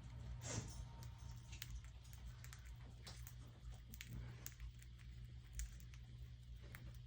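Budgies moving about, giving faint, scattered light taps and scratches over a steady low hum.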